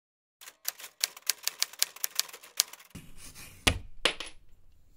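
Typewriter sound effect: a quick run of key strikes, about five a second, then two heavier strikes, the last with a brief high ring.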